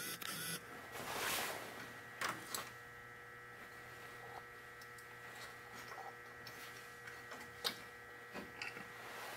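A radiator cap being turned off under a cloth: soft cloth rustling about a second in, then a few short, sharp clicks as the cap is worked loose, the loudest about three-quarters of the way through. A steady electrical hum runs underneath.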